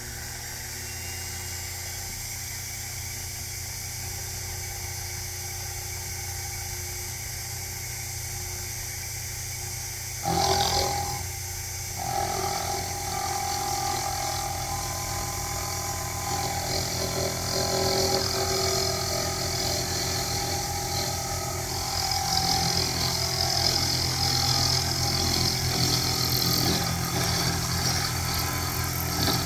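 Sherline benchtop milling machine running with a steady motor hum; about ten seconds in the sound grows louder and rougher as the end mill begins cutting the keyway slot in metal.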